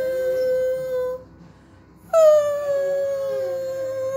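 Dog howling: one long, steady howl that ends about a second in, then after a short pause a second long howl that starts a little higher and settles to the same pitch.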